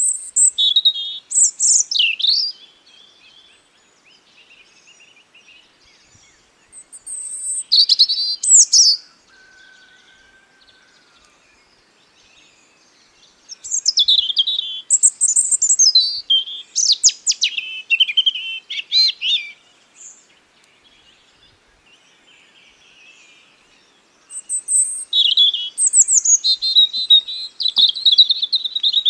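A songbird singing close by in short, loud, high-pitched warbling phrases, four bouts separated by pauses of a few seconds; the last bout ends in a fast trill.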